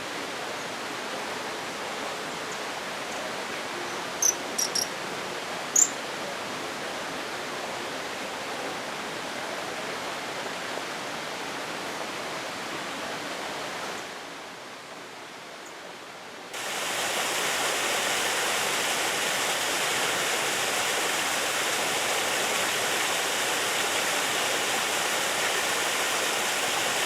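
Steady rush of falling water, with a few short high chirps about four to six seconds in. Past the middle it drops briefly, then jumps to a louder, brighter rush.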